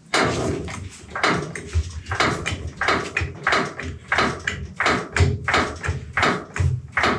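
Quick string of clacks and knocks, about two or three a second, with a few deeper thumps: a floor jack being worked under the front of a car to set it at ride height.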